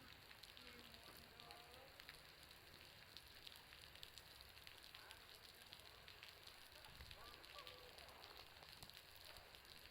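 Faint, dense crackling patter of meltwater dripping from a building's roof, a sound like a wood fire crackling, mixed with the bonfire itself. A few short, faint pitched calls sound near the start and about seven seconds in.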